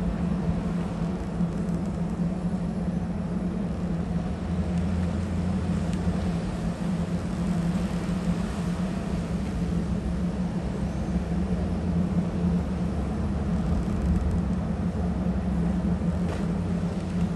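Steady low diesel drone of a large motor yacht's engines as it reverses slowly stern-first into its berth.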